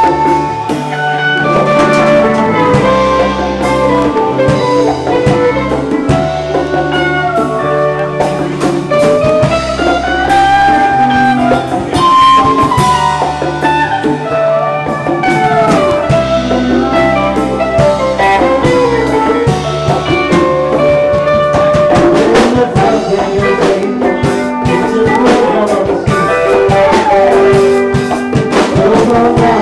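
Live band playing electric guitars and drum kit, with melodic lead lines bending up and down over a steady low end and frequent drum hits.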